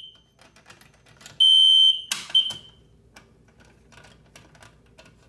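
A System Sensor P1224MC fire alarm horn sounds one steady, high-pitched blast about a second and a half in. A sharp click and a brief chirp of the horn follow, then small clicks as the pull station is reset.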